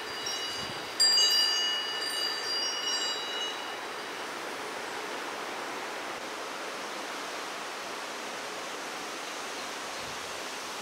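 Metal wind chime struck about a second in, ringing out with several high clear tones for a couple of seconds before fading, after the tail of an earlier strike at the start. After that only a steady background hiss remains.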